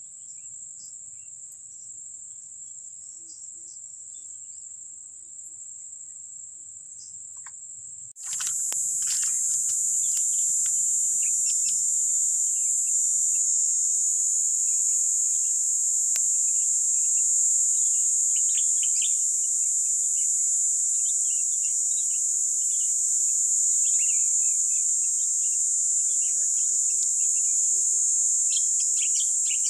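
A chorus of insects droning steadily at a high, even pitch, jumping much louder about eight seconds in, with faint rustling and ticks beneath.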